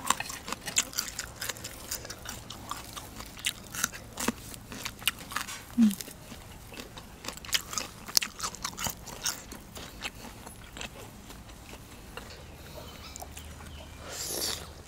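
Close-miked eating of squid: biting and chewing, heard as many quick wet clicks and smacks from the mouth.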